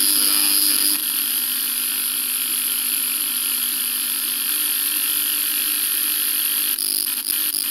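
Crystal radio with a galena detector, heard through an amplifier and speaker while its coil-tap switch is turned between positions: the received station drops out about a second in, leaving steady hiss and hum with no signal, and a few clicks near the end.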